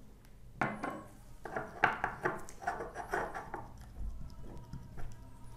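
A gloved finger stirring and rubbing a greasy paste of Vicks VapoRub and ghee against the inside of a small plastic bowl: a sharp knock about half a second in, then a quick run of scraping strokes, several a second, that fades out after about three and a half seconds.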